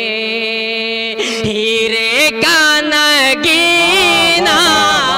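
A man singing a naat, an Urdu devotional poem in praise of the Prophet, in a slow, drawn-out melodic style. He holds one long steady note, then from about two seconds in the pitch bends and wavers in ornamented turns.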